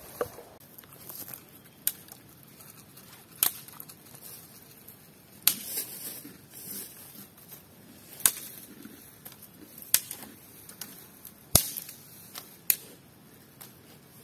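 Sharp single strikes on wood, like chopping, at an uneven pace: about eight in all, one every one to three seconds.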